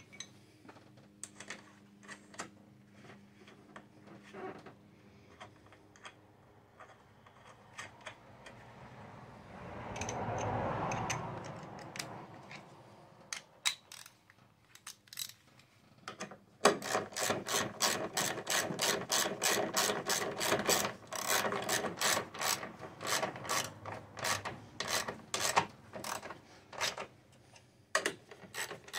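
Hand ratchet clicking as the 13 mm nuts on top of the front strut mount are tightened. At first there are only scattered clicks and a brief rustle. A little past halfway a fast, even run of ratchet clicks begins and keeps going.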